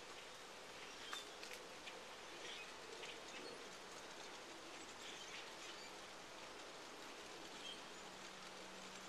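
Faint, dense chatter of a huge flock of starlings massed in trees: an even hiss of many distant calls with scattered short clicks and chirps.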